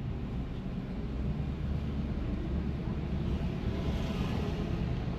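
Car cabin noise while driving slowly: a steady low rumble of engine and tyres.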